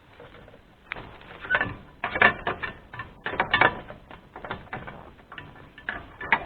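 Irregular clicks, knocks and rattles, a dozen or more in quick succession starting about a second in, with no engine running.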